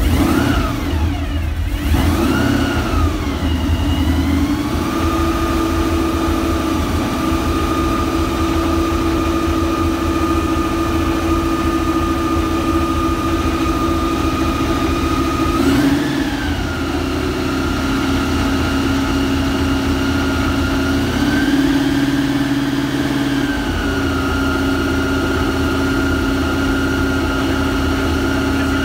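Cizeta V16T's 6.0-litre V16 engine idling, with two short throttle blips near the start and another about halfway through, and the idle held a little higher for a couple of seconds later on.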